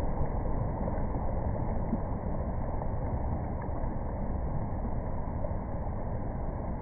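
Ocean surf: shallow foamy swash running over wet sand with small waves breaking further out, a steady rushing wash with a low, rumbling undertone.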